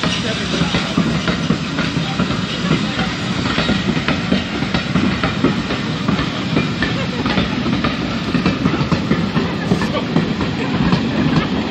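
Passenger coaches of a steam-hauled train rolling past at speed close by, a loud steady rumble with the wheels clicking rapidly on the rails.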